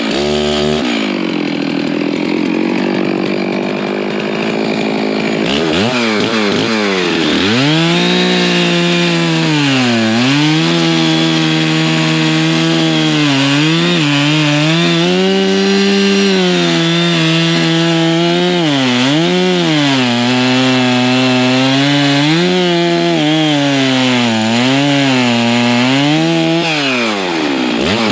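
Stihl MS660 two-stroke chainsaw running at high revs while cutting into a tree. Its engine note sags and recovers again and again as the chain loads in the wood, after a rougher, lower-revving stretch in the first few seconds.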